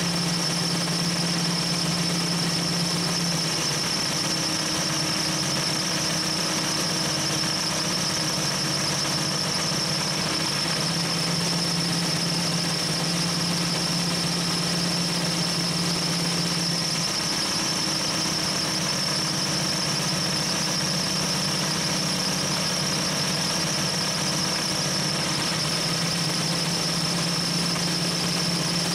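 Compressed air hissing with a steady high whistle through a dial-gauge air chuck into a Jeep tire, fed by an engine-driven Sanden AC compressor converted for onboard air. The engine runs underneath, held at about 2,000 RPM to drive the compressor.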